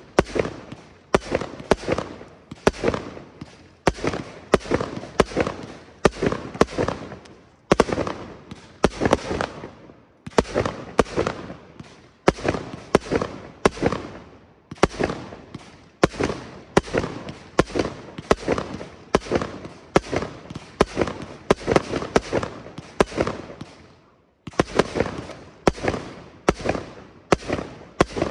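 Aerial fireworks launching and bursting overhead: a fast, steady run of bangs, about two a second, each trailing off briefly, with one short break near the end.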